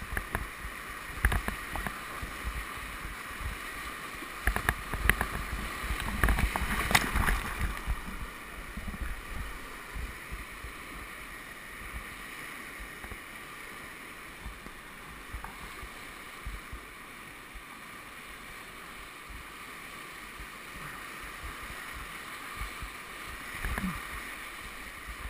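Whitewater rapid rushing around a kayak, a steady roar of broken water. Splashes and knocks from the paddle and waves hitting the boat come thickest in the first eight seconds or so.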